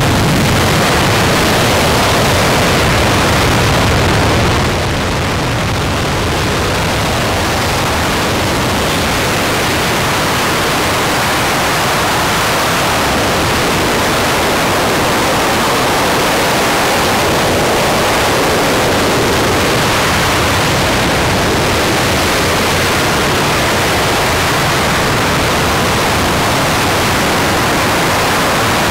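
RS-25 liquid-hydrogen/liquid-oxygen rocket engine, a former space shuttle main engine, firing at full thrust on a test stand: a steady, loud rushing noise across all pitches. Its level steps down slightly about five seconds in.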